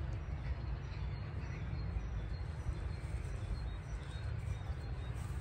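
Steady wind rumble on the microphone, with a few faint bird chirps above it.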